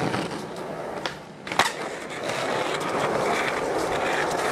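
Skateboard wheels rolling over rough asphalt in a steady rolling noise. A sharp clack of the board comes about one and a half seconds in, with a lighter click shortly before it.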